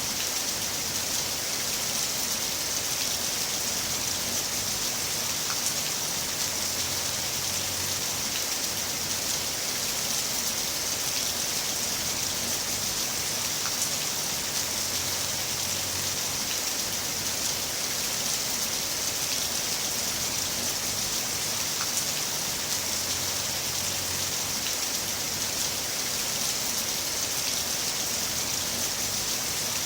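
Heavy rain falling steadily, a dense even hiss with occasional sharper drop ticks.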